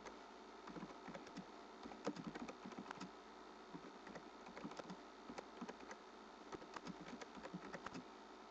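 Computer keyboard being typed on: faint, irregular key clicks, a few a second with short pauses between words, over a steady low hum.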